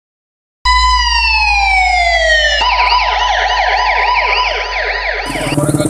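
Police siren: one slow falling wail, then a fast yelp warbling about three times a second. Near the end it cuts off into a steady hiss.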